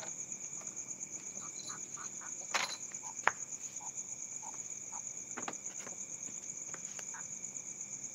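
Night insects chirring in a steady, high, pulsing drone, with scattered short faint chirps beneath it. Two sharp clicks stand out, about two and a half and three and a quarter seconds in.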